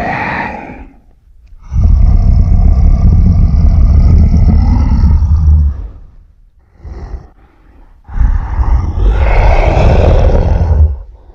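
Godzilla roar sound effects from the 1998 TriStar film: two long, deep roars, each about four seconds, with a heavy low rumble under them. A short blip sits between them, and the tail of an earlier roar is at the very start.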